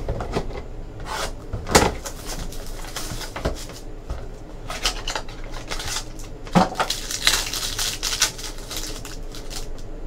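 Trading cards and plastic card sleeves and holders being handled on a tabletop: shuffling and rustling, with several sharp clicks and taps and a longer rustle late on.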